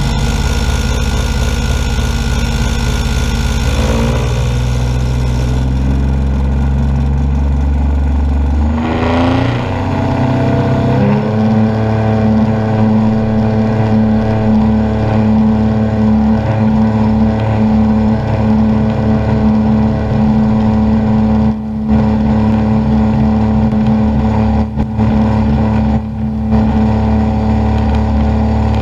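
DG505MB motorglider's pylon-mounted engine and propeller running, heard from the cockpit. About nine seconds in the engine note rises as power comes up, then it holds a steady, higher drone.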